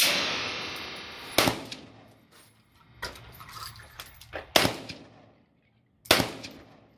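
Four single rifle shots from an AK-pattern rifle, fired at uneven intervals. Each shot leaves an echoing tail, and the first one rings on for more than a second.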